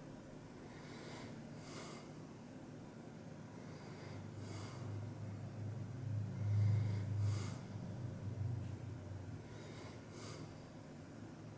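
A person breathing close to the microphone: four short whistling sniffs, one about every three seconds, over a low hum that grows louder in the middle.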